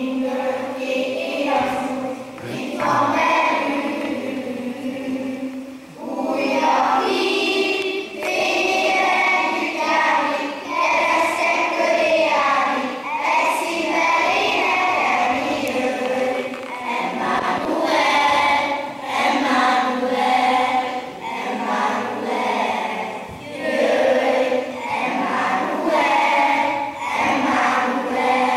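Children's choir singing together in phrases with short pauses between them; the singing stops at the end.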